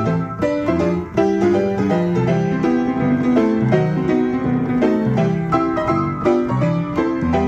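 Player piano playing a QRS paper music roll: a quick, dense stream of struck piano notes with bass notes and chords.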